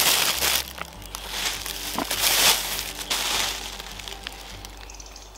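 Plastic bag crinkling in the hands as a bread roll is taken out of it, in several loud bursts, over faint background music.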